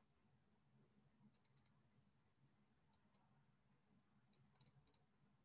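Near silence: faint room tone with a few very faint clicks in small groups, about a second in, around the middle, and again near the end.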